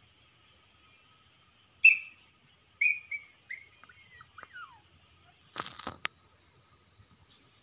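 A run of high-pitched animal cries: one loud call about two seconds in, then several shorter ones falling in pitch, the last sliding down. A brief rustle with a click or two follows near six seconds.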